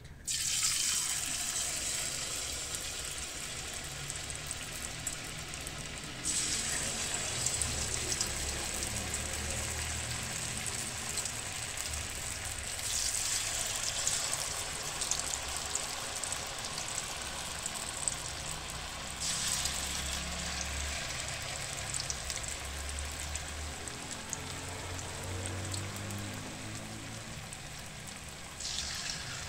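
Aloo palak pakoras (spinach and potato fritters in gram-flour batter) deep-frying in hot oil: a steady sizzle that jumps louder four times as fresh batter is dropped into the oil.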